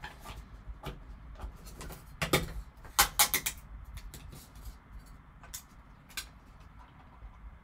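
Hands handling a trading card box and clear plastic card cases: a string of light clicks and knocks, with a cluster of sharp plastic clacks about two to three and a half seconds in.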